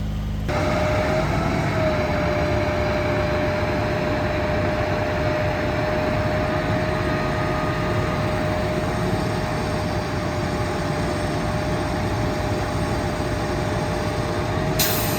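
Heavy tree-removal machinery running at a steady speed: a constant whine over a loud rushing noise. It starts abruptly about half a second in.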